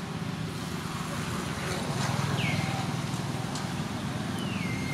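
A motor vehicle's engine running, a steady low rumble that grows louder about halfway through. Two short high calls that fall in pitch come over it, one after about two seconds and one near the end.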